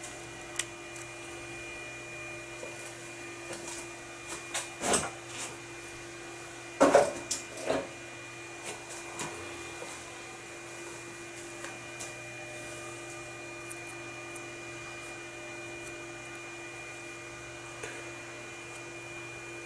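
Metal lathe running with a steady whine and hum during thread-cutting skim passes. A few short knocks and clicks come through it, the loudest about seven seconds in.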